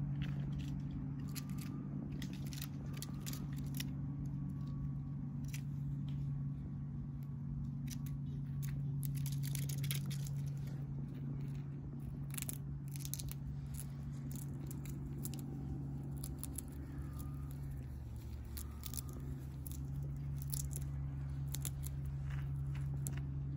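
Many small sharp clicks and scratches from red squirrels on a pine trunk, their claws on the bark and teeth on a nut, over a steady low hum.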